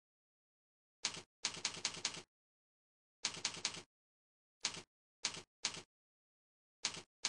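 Mouse-click sound effects played by the CursorXP cursor program: a short, sharp, typewriter-like clack for each click. There are about a dozen, some in quick runs of three or four and some single, with dead silence between them.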